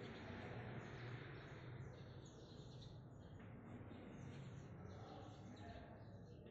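Chalk scratching faintly on a chalkboard as letter strokes are written, strongest in the first two seconds, with short faint squeaks.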